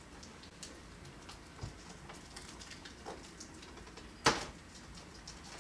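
Faint clicks and crinkles of fingers picking at the plastic shrink-wrap on a Blu-ray gift-set box, with one sharper click about four seconds in.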